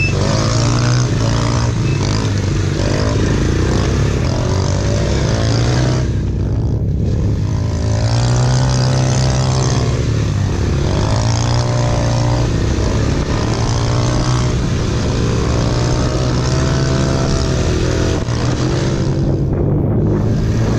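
Small modified 90cc youth quad engine at race throttle, its pitch climbing and falling again and again as it revs up and eases off. The throttle closes briefly twice, about six seconds in and near the end.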